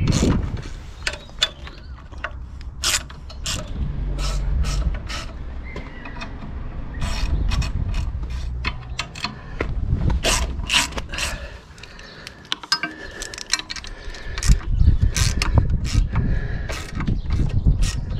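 Socket ratchet clicking in short, irregular runs as the steel crash-bar bolts are snugged up, with the odd tap of the tool against metal. A low rumble comes and goes underneath.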